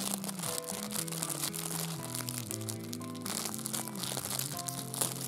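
Background music with held, stepping notes, over the crinkling of a clear plastic bread bag being handled and opened by hand.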